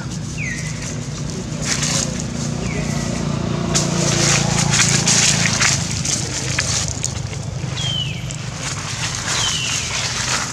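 Dry leaf litter crackling and rustling as macaques move and handle leaves on the ground, with four short high calls that fall in pitch scattered through it.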